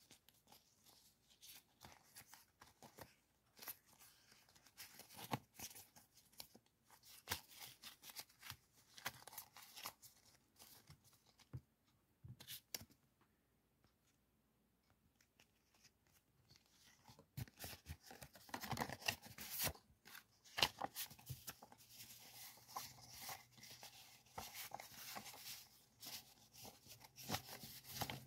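Paper stickers and sheets rustling and crinkling as they are handled and leafed through by hand, in many small crackles. A few seconds of near quiet fall about halfway through, and the rustling is busier and louder afterwards.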